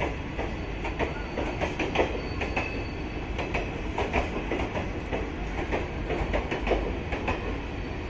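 Indian Railways passenger coaches rolling past, with a steady rumble and wheels clicking irregularly over rail joints.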